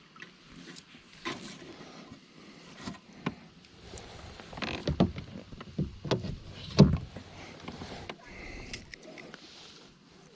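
Knocks and thumps against a kayak, with scattered clicks, as a freshly caught bass and gear are handled aboard. The knocks cluster and get loudest in the middle, with one sharp thump about two-thirds of the way through.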